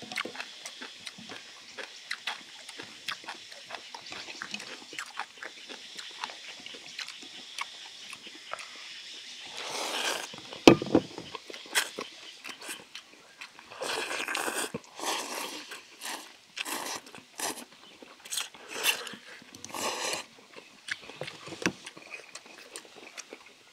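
People eating thin wheat noodles with chopsticks: wet chewing and lip-smacking, then a run of loud slurps as mouthfuls of noodles are sucked in, from about ten seconds in.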